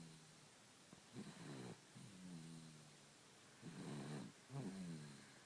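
Faint snoring from a sleeping baby, two breath cycles: each a short raspy breath followed by a longer pitched breath that falls slightly in pitch.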